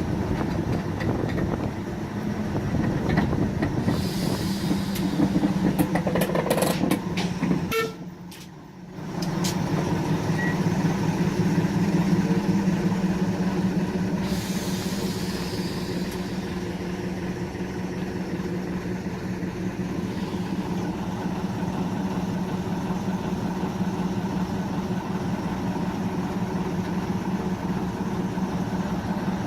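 Diesel shunting locomotive running with a steady engine drone. Bursts of hiss come about four and fourteen seconds in, and the sound briefly drops away around eight seconds in.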